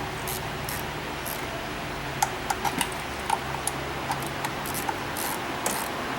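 Light metallic clinks of hand tools on engine parts, several in quick succession about two seconds in, over a steady low workshop hum and a soft hiss that comes and goes.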